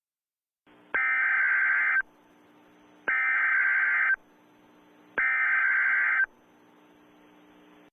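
Emergency Alert System SAME header: three one-second bursts of shrill, warbling digital data tones, about a second apart, the coded signal that opens a new alert message. A faint hum lies underneath in the gaps.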